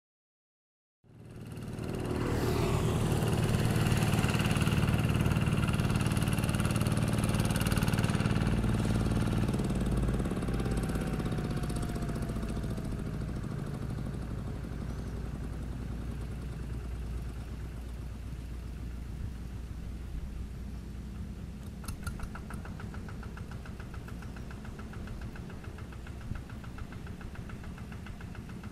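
Kubota RD110Di-2T 11 hp single-cylinder diesel engine of a two-wheel hand tractor running under load while rotary-tilling a flooded rice paddy. It starts about a second in, is loudest for the first several seconds, then settles steadier and somewhat quieter.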